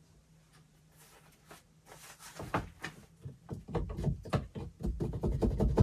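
Rapid, irregular scraping and knocking from a screwdriver and electrical wire being worked in a hole bored through solid wood framing. It starts about two seconds in and grows louder, with heavy knocks near the end.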